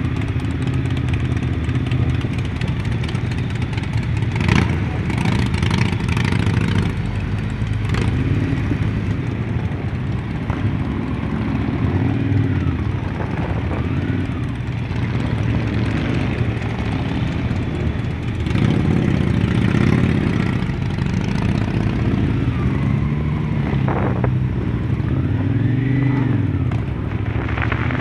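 Several motorcycle engines running at low speed in a slow group ride, revving up and down a few times, with a few sharp knocks.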